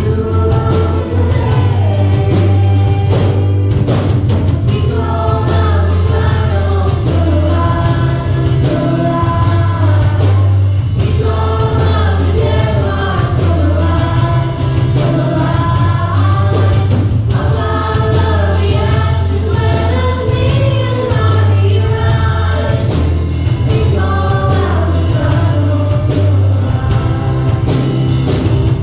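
Live worship song: vocalists singing a melody into microphones, backed by keyboard, guitar and a drum kit keeping a steady beat.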